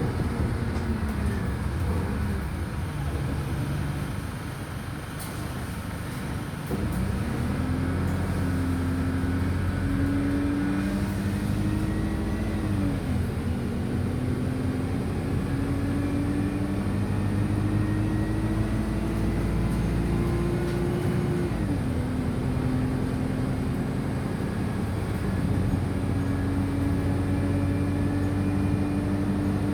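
Wright Streetlite single-deck bus engine heard from inside the bus, pulling away after a short quiet spell and accelerating, its pitch climbing steadily and dropping twice, at gear changes about a third and two thirds of the way in.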